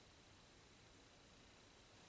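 Near silence: faint steady hiss of room tone, with a thin high electronic whine.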